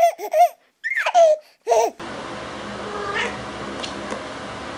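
A high-pitched, child-like voice giggling and babbling in short bursts for about two seconds. It cuts off abruptly to steady, quieter room noise with a couple of faint soft sounds.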